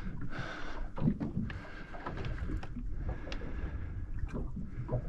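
Water sloshing against a small boat's hull, with a few scattered light knocks and clicks.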